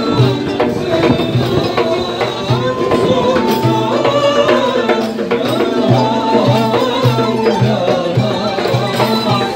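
Turkish traditional music: ney flutes play a wavering melody over bendir frame drums beating a steady rhythm, about two deep drum strokes a second.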